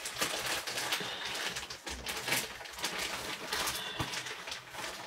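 Irregular rustling and handling noise as fabric brushes and shifts against a phone's microphone, with scattered soft ticks.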